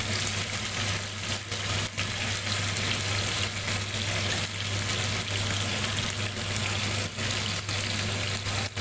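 Marinated chicken pieces sizzling steadily as they fry in hot oil in a kadai over a high gas flame, being browned. A steady low hum runs underneath.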